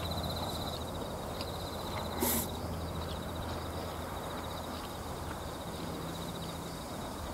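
Outdoor ambience: a high, rapidly pulsing insect trill that breaks off and resumes, over a steady low hum of wind, with one short rustle about two seconds in.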